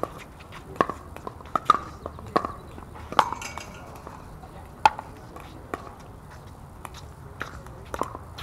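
Pickleball paddles striking a hard plastic pickleball in a quick exchange at the net: a string of sharp pops at an uneven pace, roughly one a second, ending about eight seconds in.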